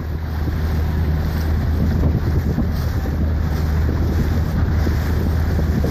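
Motorboat engine running steadily as a constant low hum, with wind buffeting the microphone and the rush of water alongside.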